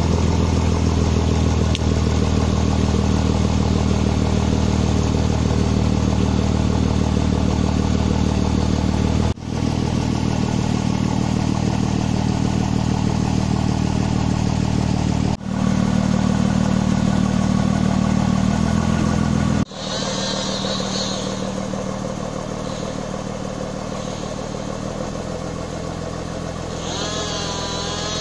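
Engine of a homemade forestry forwarder running steadily. The sound breaks off abruptly three times; after the last break the engine is quieter, and a wavering high-pitched sound comes in briefly just after that break and again near the end.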